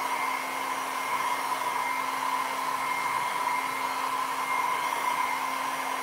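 Small travel hair dryer running steadily: a rush of air with a constant hum and a steady higher whine.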